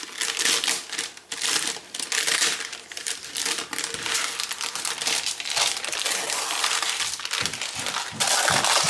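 Parchment paper crinkling and rustling in irregular bursts as hands fold it back and peel it away from a slab of set fudge.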